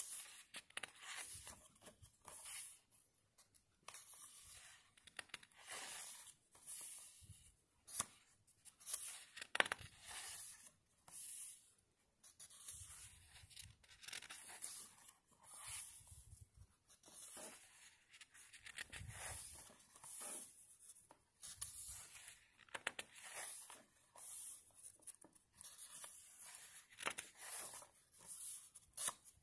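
Paper pages of a bound book being turned and smoothed by hand: a run of short rustles and swishes, about one a second, with the odd light tick.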